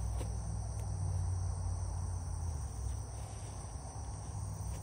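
Steady chorus of insects, a continuous high-pitched trill, over a low rumble that eases off a little past halfway.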